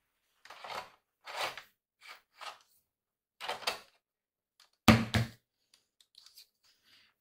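Hard disk mounting basket holding a 2.5-inch hard drive being slid into a PS4 Slim's hard disk bay: several short scraping slides, then a louder double knock about five seconds in as it is pushed home, followed by a few faint ticks.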